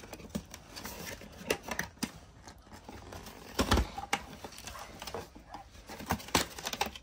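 Cardboard toy box being handled and opened by hand: scattered taps, scrapes and rustles of the cardboard flaps, with a louder knock about three and a half seconds in.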